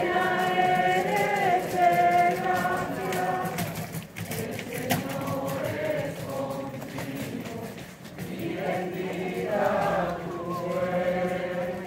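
A group of voices singing a slow rosary chant, holding long notes in phrases with short breaks between them.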